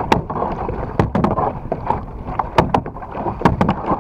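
Kayak paddling in choppy water: a double-bladed paddle dipping and splashing against a steady wash of water, broken by a dozen or so sharp, irregular slaps and knocks.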